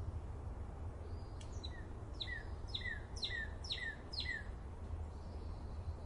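A songbird calling a run of about seven sharp, falling notes, roughly two a second, the later ones loudest, over a steady low rumble.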